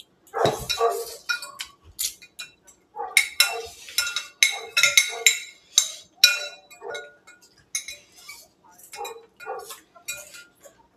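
Metal spoon and fork clinking and scraping against plates and bowls during a meal, many short clinks at uneven intervals.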